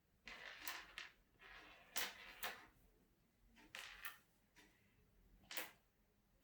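Tiny neodymium magnetic balls clicking and rattling together as they are handled, in a few separate short clicks with quiet gaps between.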